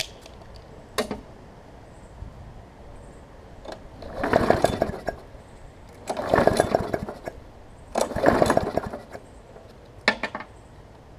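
Briggs & Stratton Classic push-mower engine being pull-started: three recoil-starter pulls about two seconds apart, each cranking for about a second, with the engine not catching and running. A sharp click about a second in and another near the end.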